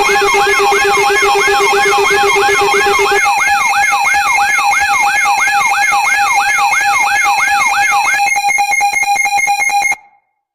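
Electronic emergency alert siren: a steady tone under a quick rising-and-falling wail that repeats about twice a second. A lower tone drops out about three seconds in, the wail stops about eight seconds in, and the remaining steady tone cuts off abruptly near the end.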